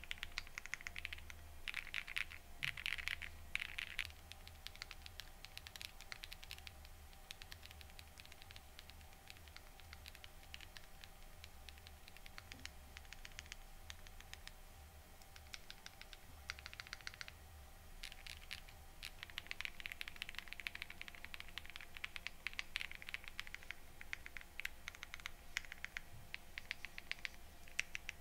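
Typing test on an M.ONE Ginkgo65 Pro gasket-mount mechanical keyboard with hand-lubed switches: a fast run of keystroke clacks. About four seconds in the sound turns softer when it changes from the aluminium plate with full foam to the aluminium plate without the switch underlay sheet. At about 19 s it turns louder again when the polycarbonate plate with full foam comes in.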